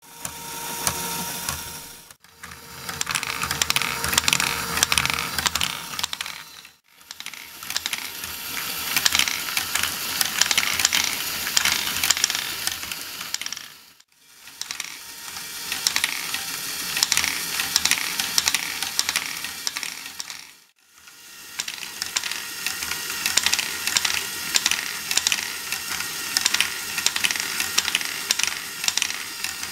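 LEGO Technic spiral-lift ball module (Akiyuky's screw design) running: a busy, steady clatter of plastic gears and ratcheting parts, with small plastic balls rattling through the lift. The clatter dies away briefly four times and comes back.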